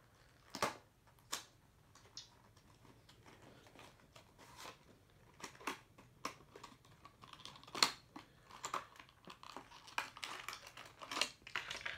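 A diecast toy car's cardboard box and plastic packaging being opened by hand: scattered sharp clicks, taps and short rustles, busier in the last few seconds.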